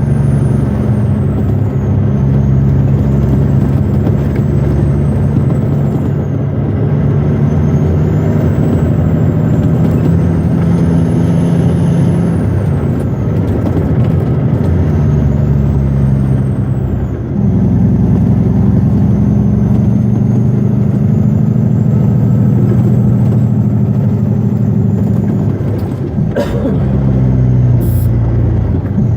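Western Star logging truck's diesel engine running steadily under load, heard from inside the cab. About two-thirds of the way through the engine note dips briefly and comes back at a different pitch, as with a gear change.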